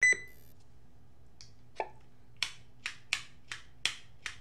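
A short ringing electronic beep at the very start, then a row of about seven sharp clicks or taps, irregularly spaced, in the second half.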